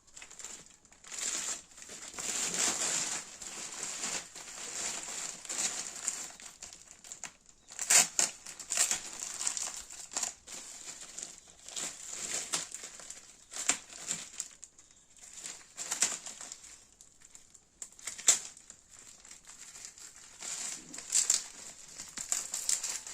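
Packaging crinkling and rustling as it is handled and opened for unboxing, in irregular bursts with a few sharper crackles.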